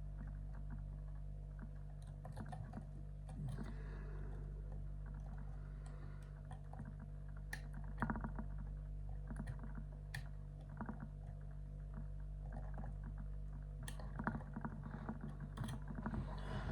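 Lock pick and tension tool working the pins of an ISEO pin-tumbler van slam lock: irregular small metallic clicks and scrapes, with a few sharper clicks standing out.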